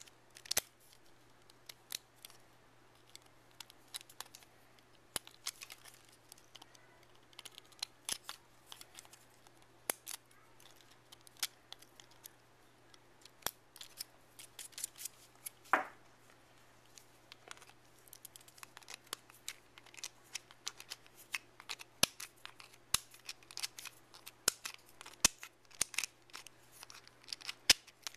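Irregular sharp clicks and snaps of plastic support material being picked and broken out of a 3D-printed bearing with a pointed tool, several close together at times, with one louder snap about halfway through.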